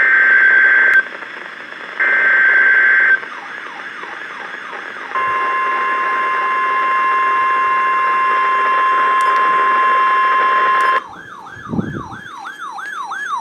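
NOAA Weather Radio Emergency Alert System signal: two roughly one-second bursts of SAME header data tones, a short pause, then the steady 1050 Hz warning alarm tone for about six seconds. The alarm tone cuts off abruptly and a fast, repeating warbling tone follows near the end.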